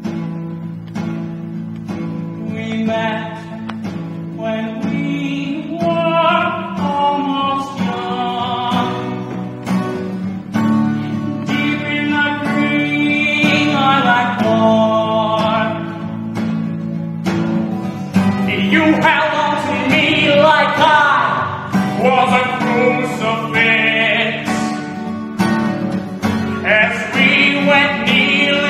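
A man singing a song to strummed guitar chords. The voice comes in a few seconds in, over guitar that plays throughout.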